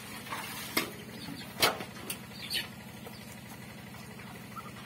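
A few sharp knocks, the loudest about one and a half seconds in, as the ducks' metal water basin is handled on the ground, over a steady low hum.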